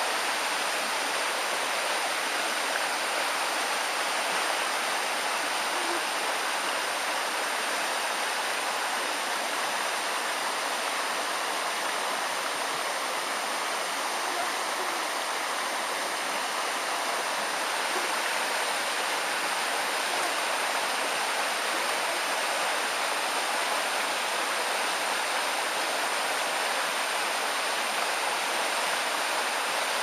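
Forest creek rushing over rocks in small rapids: a steady, even rush of water.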